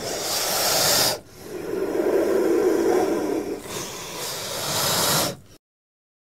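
Cobra hissing in three long hisses, the middle one lower and longest, then cutting off suddenly about five and a half seconds in.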